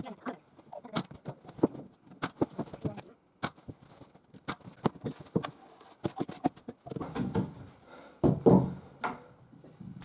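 Scattered sharp taps and knocks of small objects being handled and set down, with brief voice sounds between about seven and nine seconds in.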